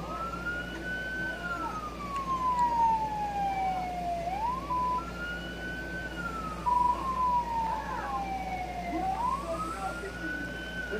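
A siren wailing, its pitch sweeping up quickly and sinking slowly, about once every five seconds, with two short steady blips midway through.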